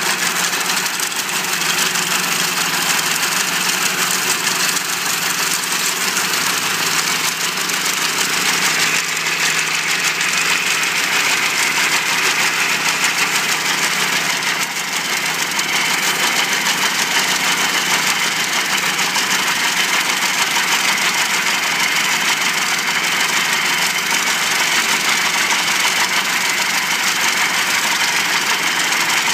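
Case 930 tractor's engine running steadily while its MF41 sickle bar mower cuts grass, the mower's reciprocating knife and belt drive chattering along.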